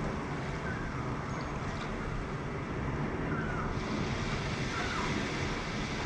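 Steady wash of sea waves, a sound effect from the show's soundtrack played through speakers, with a few faint short glides above it.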